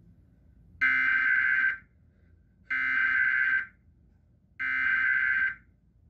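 Emergency Alert System SAME header: three bursts of digital data tones, each just under a second long with about a second's pause between them. These bursts carry the coded header that opens a Required Weekly Test.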